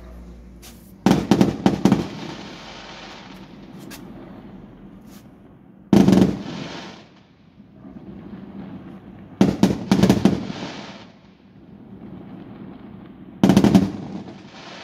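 Fireworks display: four volleys of aerial shells going off, each a quick cluster of sharp bangs and crackles followed by a rolling, fading echo, spaced a few seconds apart.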